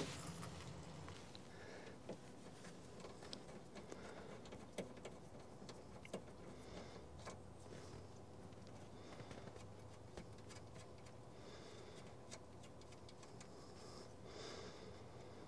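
Near silence broken by faint, scattered small clicks and taps of hands working among engine-bay wiring and a plastic relay module.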